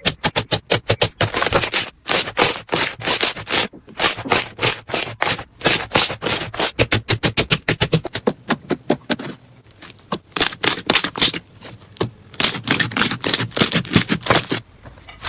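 Slime being pressed and worked by hand, giving rapid runs of crackling, clicking pops several times a second, with a change in the pattern about two-thirds of the way through.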